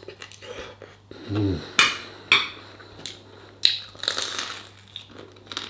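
A man eating a noodle stir fry close to the microphone: a short closed-mouth "mm" about a second in, then several sharp mouth and cutlery clicks, and a noisy sucking as he licks his fingers near the end.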